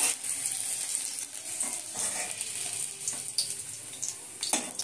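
Hot oil sizzling in a steel wok as fried bitter melon slices are scooped out with a metal spatula, with light scraping and a sharp clink of the spatula near the end.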